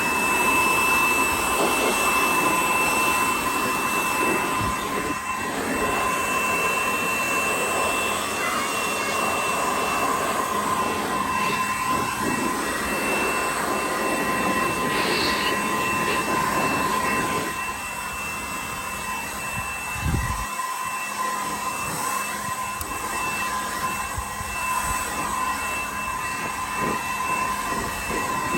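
Milwaukee M12 cordless compact blower running steadily, with a high whine over rushing air, blowing sawdust and composite-decking debris out of a table saw's dust port. It gets a little quieter about two-thirds of the way through.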